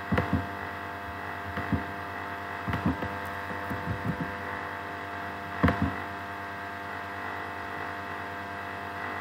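Steady electrical hum with several fixed tones, picked up by a computer microphone, with scattered sharp clicks of a mouse and keyboard keys in the first six seconds, the loudest click just before six seconds; the clicks then stop and only the hum is left.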